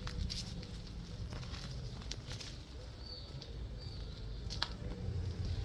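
Outdoor ambience: a low rumble of wind on the microphone, scattered light crackles and rustles, and two short high bird chirps about three and four seconds in.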